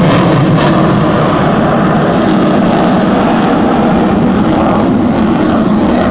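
F-22 Raptor's twin afterburning turbofan engines: a loud, steady jet roar from the fighter in flight, its highest hiss thinning slightly over the last few seconds.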